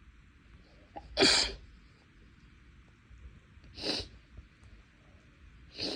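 A breathy, unvoiced sneeze about a second in, then two shorter sniffs near the end, from a nose irritated enough that the sneezes are bigger and louder than usual.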